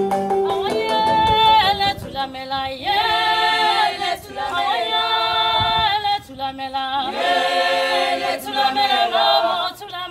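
Voices singing a cappella in phrases of a few seconds each, chanting in a non-English language, as part of a music soundtrack.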